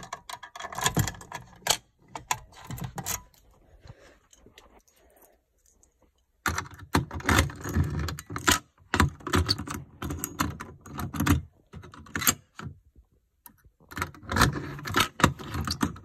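A ring of metal keys jangling and clicking against a Simplex fire alarm pull station as its reset key is worked in the lock, in several bursts with short pauses between.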